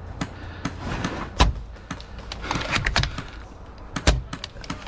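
Airsoft gunfire in a firefight: an irregular scatter of sharp shots and pops. The two loudest come about a second and a half in and about four seconds in.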